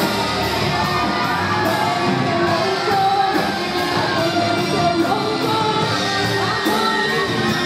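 Women's choir singing a gospel praise song with a live band in a large hall, over a steady beat.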